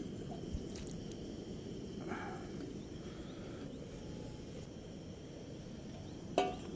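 Outdoor ambience: a steady low rumble with faint high chirps, and one short sharp sound with a brief ringing tone near the end.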